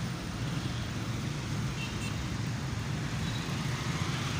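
Steady outdoor background rumble, like road traffic, with a low hum and no distinct events.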